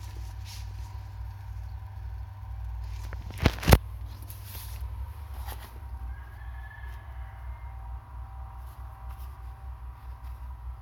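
A power tiller's diesel engine running nearby as a steady low throb, with two sharp clicks about three and a half seconds in.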